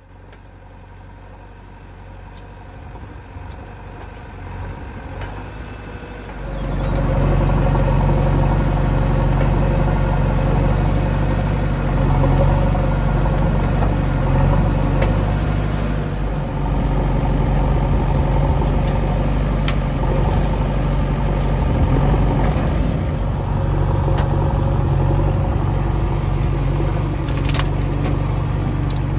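Diesel engines of a JCB 3DX backhoe loader and a Swaraj 735 FE tractor running, quiet at first and settling into a steady drone about six seconds in. Near the end there are a couple of short clatters as the backhoe bucket dumps soil into the tractor's trolley.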